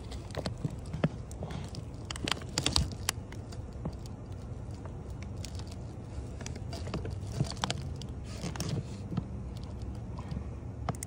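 Irregular light metallic clicks and scrapes as a camshaft is slid through the cam bearings of an LS V8 engine block, over a low steady hum.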